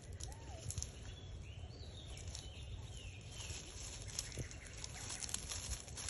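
Outdoor ambience: a steady low rumble with scattered crackles, a short squeak near the start, and a few brief falling chirps in the first half, like small birds calling.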